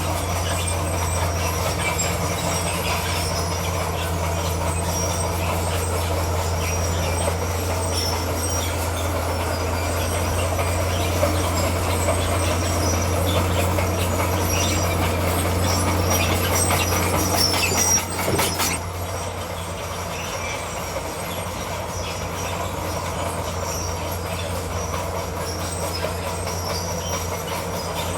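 Bulldozer's diesel engine running steadily under load, with metallic clatter from its steel tracks as it pushes and spreads stone. About eighteen seconds in, the sound drops suddenly and carries on quieter.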